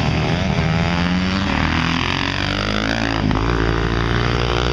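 Engines of two supermoto dirt bikes racing, revving up and down through the gears, with one engine's pitch dipping and then climbing again around the middle.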